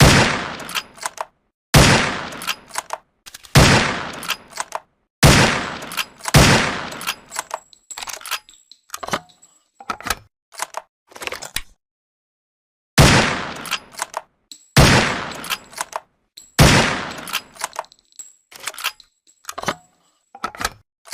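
SRP rifle sound effect: eight single shots, each with a short ringing tail and followed by a few small metallic clicks. There are five shots about one and a half to two seconds apart, then a pause of several seconds holding only light clicks, then three more shots.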